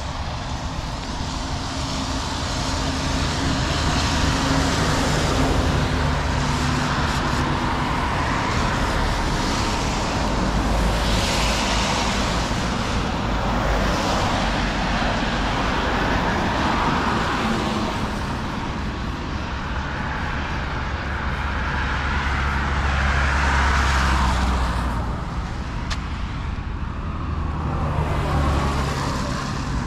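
Road traffic: cars and heavier vehicles passing one after another, their tyre and engine noise swelling and fading as each goes by, loudest about four to six seconds in and again a little before the end.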